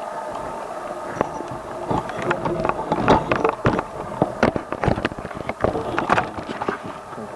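Handling noise: a rapid, irregular run of sharp clicks and knocks close to the microphone, starting about a second in, over a steady background hum.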